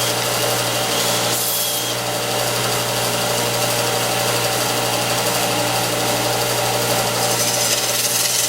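Belt sander and electric drill running together, a spinning wood strip being sanded round into a dowel against the moving belt. A steady machine hum under an even sanding hiss.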